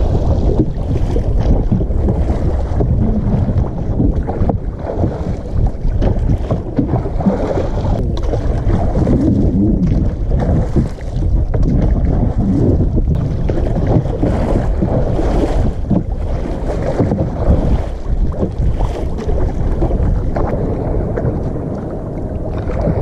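Wind buffeting the microphone over water splashing and sloshing around a wooden rowboat being rowed with oars.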